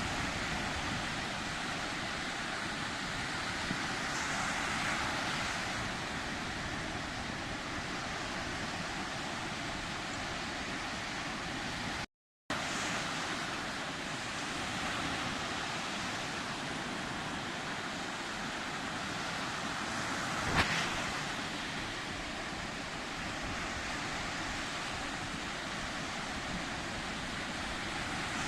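Sea surf washing steadily, with a swell of breaking waves about five seconds in. The sound cuts out completely for a moment about twelve seconds in, and a single sharp tap stands out about two-thirds through.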